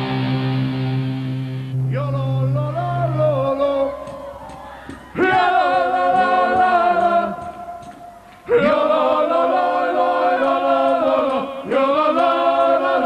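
A rock band's singers sing loud phrases together, chant-like and with little or no backing, with short breaks between phrases. A held low note sounds under the start and cuts off about three and a half seconds in.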